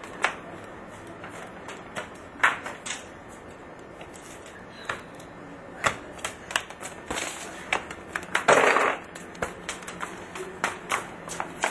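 A rubber ball being kicked and bouncing on a paved courtyard floor: irregular single knocks and slaps, a few close together, with a louder half-second noise about eight and a half seconds in.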